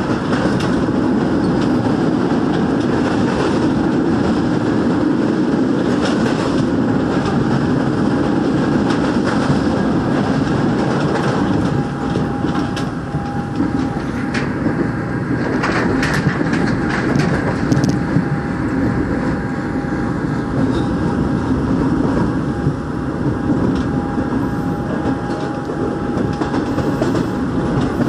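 Seoul Line 1 rheostat-control electric train running at speed, heard from inside the car: a steady rumble of wheels on rail with a faint steady whine, and a cluster of clicks over the rails about halfway through.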